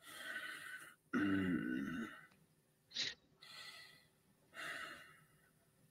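A man sighing and breathing out heavily, with a drawn-out, falling groan about a second in, a brief sharp sniff-like sound in the middle, and two more soft breaths: an exasperated reaction to a hard choice.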